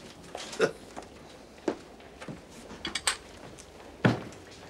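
Footsteps on a hard shop floor as people walk out, a few irregular heel knocks, with a sharper knock about four seconds in.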